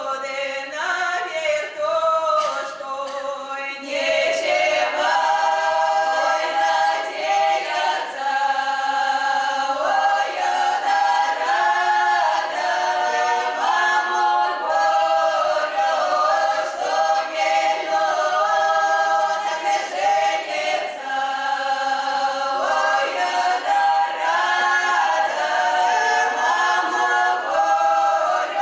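Russian women's folk ensemble singing a cappella in traditional open-voiced style, performing an Orenburg-region stradaniya song. The singing grows fuller and louder about four seconds in.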